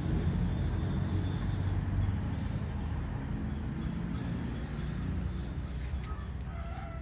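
Low engine rumble of a motor vehicle, slowly fading away. Faint bird chirps come in near the end.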